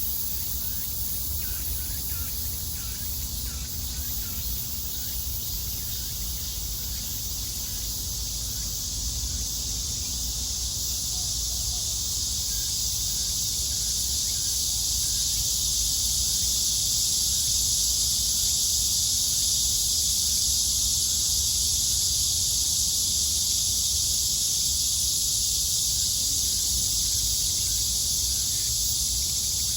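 A chorus of cicadas buzzing in one dense, high, steady drone that swells louder around the middle and stays loud. Faint short bird chirps come through in the first third, over a steady low rumble.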